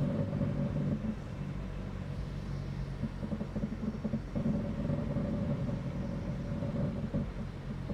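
Car engine running steadily at low road speed with its exhaust broken and hanging off, a low even drone heard from inside the cabin.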